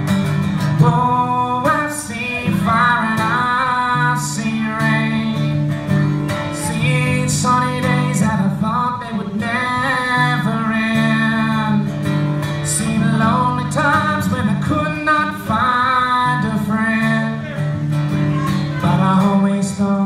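A man singing a slow folk ballad to his own strummed acoustic guitar, through a microphone.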